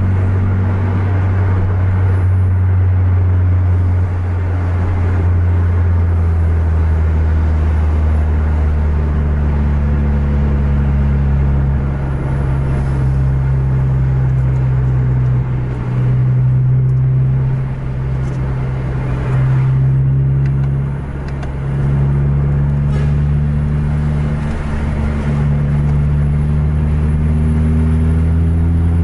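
Engine and road noise of a vehicle driving at speed: a steady low engine drone whose pitch steps down and up a few times, with short dips as the throttle eases, and a steady rise in pitch near the end as it accelerates.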